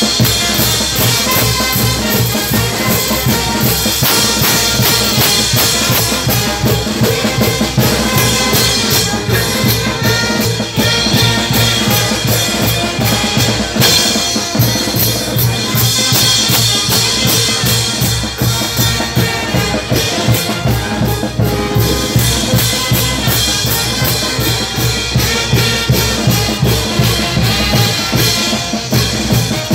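Live street band music with a steady drum beat, a large bass drum among the drums, played loud and close.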